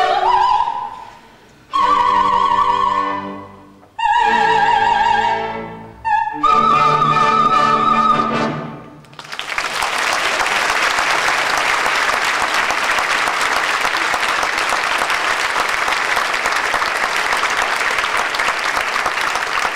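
Opera-house orchestra and singers end a number with a series of loud held chords separated by short breaks, the last with a high sustained vocal note on top. About nine seconds in, steady applause takes over and continues.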